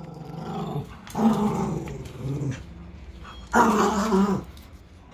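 Small shaggy dog growling in several long, low growls, the loudest about three and a half seconds in. It is guarding its new toy ball, a jealous warning to keep away from it.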